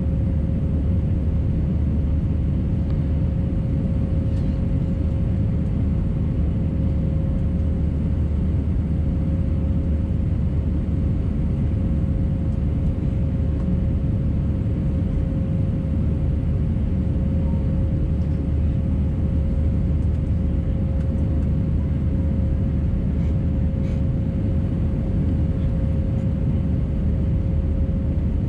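Steady cabin drone of an Airbus A319 in flight: low engine and airflow rumble from its CFM engines, with a thin steady hum running through it.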